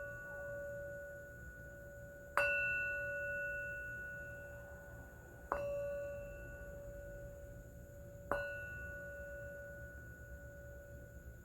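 A single metal singing bowl or meditation bell struck three times, about three seconds apart, each strike ringing on at the same pitch and slowly dying away.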